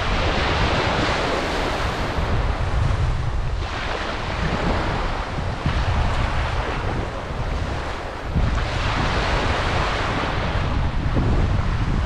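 Small sea waves breaking in the shallows and washing up over sand, surging in and easing back every four seconds or so, with wind rumbling on the microphone.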